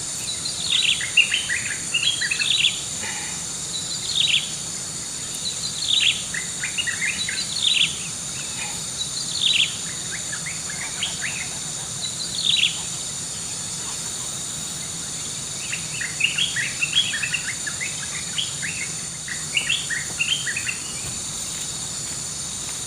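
Wild birds calling: a short falling note repeated about every two seconds, with bursts of quick chirps that thicken near the end, over a steady high-pitched drone of insects.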